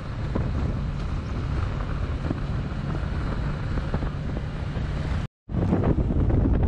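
Wind rushing over the microphone of a moving motorcycle, with the engine running low underneath. The sound cuts out briefly a little past five seconds in and comes back somewhat louder.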